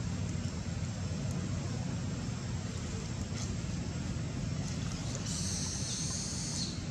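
A steady low rumble of noise, with a brief high hiss starting about five seconds in.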